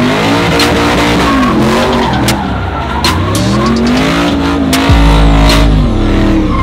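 A truck's V8 revving hard during a burnout, the revs climbing and falling several times over the hiss and squeal of spinning tyres, and dropping low about five seconds in.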